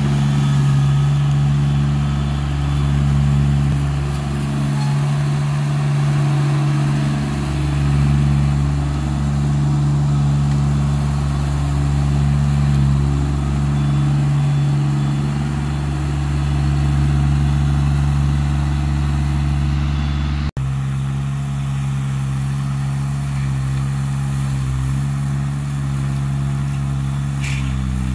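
Remote-controlled tracked flail mower (LV 800 Pro) running steadily, its engine holding an even note while the front flail head cuts grass. The sound drops out for an instant about 20 seconds in.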